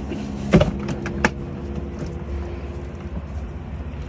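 A boat's engine running as a steady low hum, with two sharp knocks in the first second and a half.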